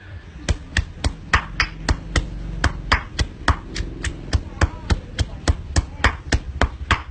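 Stone pestle pounding chillies, shallots and garlic in a granite mortar: a steady run of sharp knocks, about four a second.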